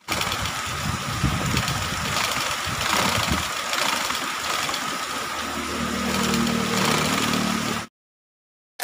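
A motor running steadily with a constant whine, cutting off suddenly shortly before the end.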